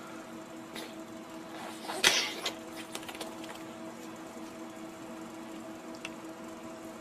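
A cat shifting on a fabric blanket makes a brief rustling scrape about two seconds in, followed by a few faint clicks, over a steady hum.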